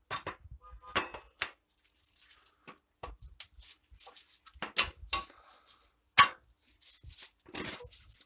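Gloved hands handling and seating a nylon alignment ring over a metal engine cylinder: scattered light clicks, knocks and rustling, with the sharpest click about six seconds in.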